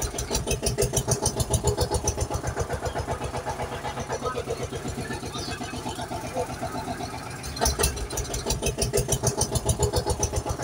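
Tractor engine chugging in a fast, even rhythm, surging louder for a moment about eight seconds in.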